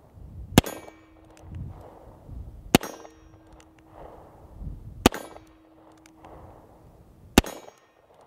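Korth Mongoose revolver fired four times at a slow, even pace, about two seconds apart. Each shot is followed by a ringing metallic tone about a second long.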